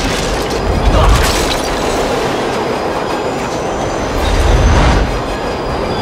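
Subway train coming through a tunnel, a loud, steady low rumble of wheels on the rails with a faint high squeal.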